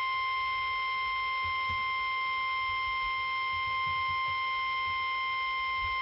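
NOAA Weather Radio warning alarm tone: a single steady high beep near 1050 Hz, held unbroken and coming through a radio's speaker, the signal that a new alert is about to be read.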